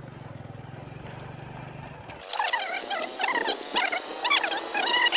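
A motorbike engine running with a low, steady hum. About two seconds in, the sound cuts abruptly to a louder, busy chatter of many high-pitched chirps and squeaks.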